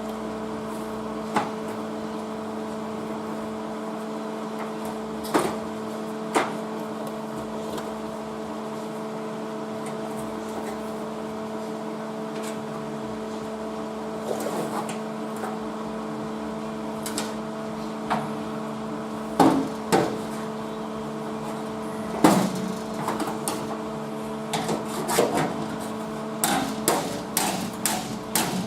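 Hammer blows on sheet steel, a few scattered knocks at first, then a quick, irregular run of taps near the end, over a steady electrical hum.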